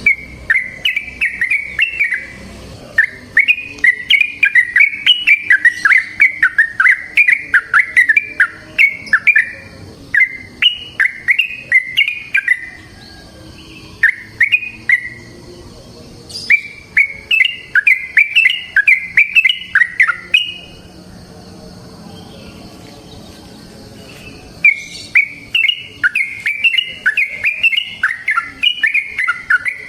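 Yellow-vented bulbul (trucukan) singing long runs of quick, chattering whistled notes: the rapid 'ropel' song. It comes in several bouts, with a longer pause about two-thirds of the way through.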